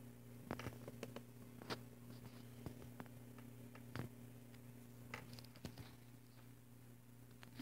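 Near silence in a small room: a steady low hum with a scattering of faint, irregular clicks and rustles.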